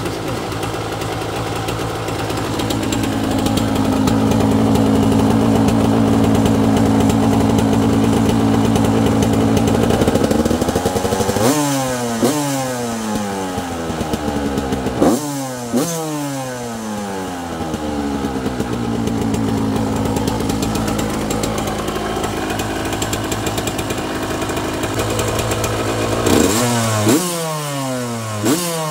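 Yamaha YZ125 two-stroke single-cylinder engine running on the stand through an FMF spark-arrested silencer: held at a steady fast idle for several seconds, then the throttle is blipped four times, the revs rising sharply and falling back toward idle after each.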